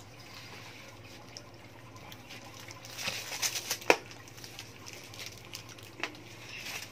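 Faint crackles and clicks from a wrapped mochi ice cream being handled and eaten, busiest about three seconds in, with a sharp click just before four seconds and another near six.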